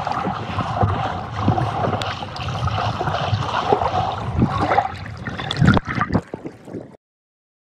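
Water sloshing and bubbling around a camera held underwater, full of small clicks and gurgles, with a louder splash near the end as it nears the surface. The sound cuts off abruptly about seven seconds in.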